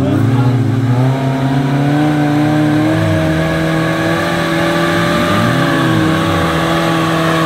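Suzuki Katana 4x4's engine running steadily under load as it crawls along a muddy track, the pitch dipping and rising briefly a few times.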